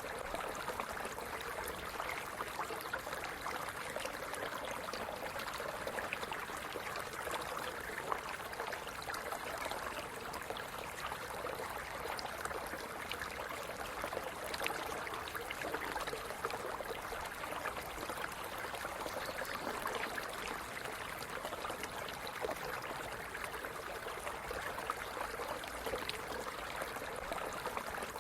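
Stream running steadily, with small splashes and gurgles over an even rush of water.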